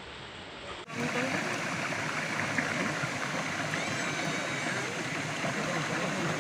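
Steady rush of falling water from a waterfall, starting abruptly about a second in, with faint voices of people under it.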